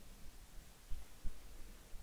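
Quiet room tone with two soft low thuds about a second in, from hands readying a flint and a steel striking iron before the first strike.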